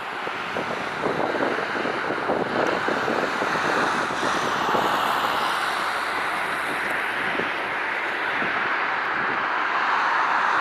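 Boeing 777-200LR's GE90 jet engines running: a steady rushing noise that swells a little at times. Wind buffets the microphone underneath.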